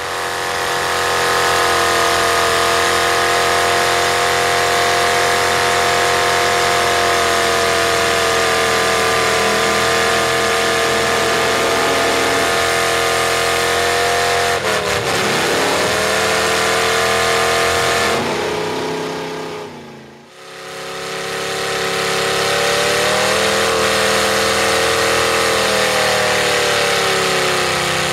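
V8 engine of a 1980s Ford pickup with upright exhaust pipes, held at high revs as its wheels spin in deep mud, the pitch sagging and climbing back a few times. The sound fades away and returns about twenty seconds in.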